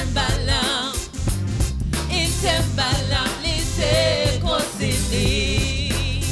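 Live gospel worship song: a woman sings with a wavering vibrato over electronic keyboard, a drum kit and a heavy bass line.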